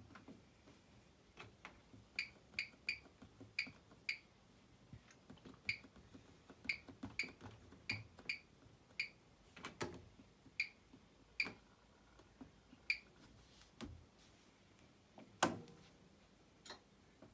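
Bosch WAN28281GB washing machine's control panel giving a run of short, high single-pitch beeps at uneven intervals, each with a small click, as its controls are worked. There are a couple of louder knocks, one near the middle and one towards the end.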